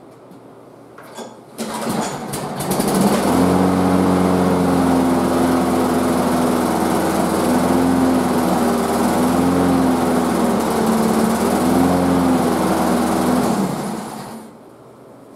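Walk-behind lawn mower's small engine pull-started. It catches about two seconds in and runs with its speed wavering up and down, then shuts off near the end. It runs without vibration now that its bent crankshaft has been straightened, but the owner judges that it needs carburettor work.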